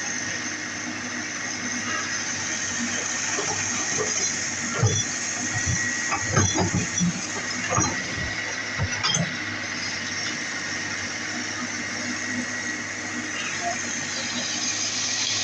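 Komatsu PC200 hydraulic excavator running steadily, its engine and hydraulics giving a continuous hum with a thin high whine. From about four to nine seconds in there are several knocks and low rumbles as the bucket works the sand.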